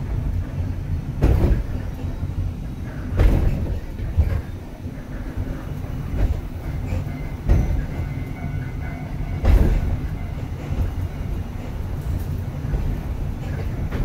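Ikoma Cable funicular car running downhill on its rails, heard from inside the cabin: a steady low rumble, broken five times by a heavy clunk at uneven intervals.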